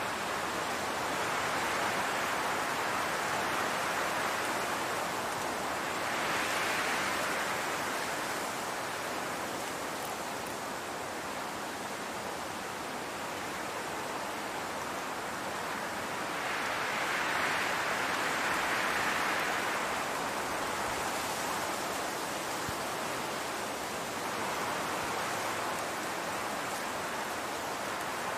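Wind blowing across a grassy field: a steady rushing hiss that swells in two gentle gusts, one a quarter of the way in and a longer one past the middle.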